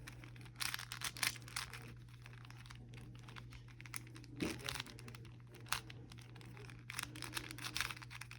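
Plastic Rubik's-type puzzle cube being turned by hand: quick, irregular clicking and scraping of the layers as they are twisted, in short flurries with brief pauses.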